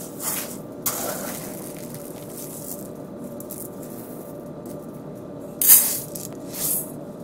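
Dry uncooked rice scooped with a plastic measuring cup from a plastic bin, the grains rustling and rattling as they shift and spill back. Near the end a cupful is poured into a rice cooker's inner pot in a short loud rush.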